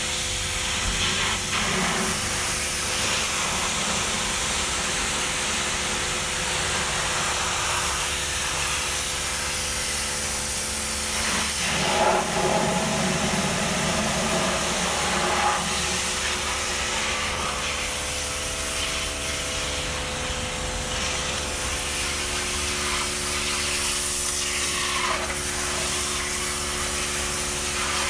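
A car-detailing cleaning machine running with a steady hiss and an even motor hum underneath, with a couple of brief louder bursts about twelve and fifteen seconds in.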